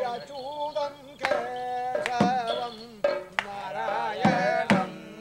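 A voice singing a melody with a wavering, ornamented pitch, accompanied by several sharp drum strokes at irregular spacing: the sung verse and drumming that accompany a Kerala shadow-puppet play.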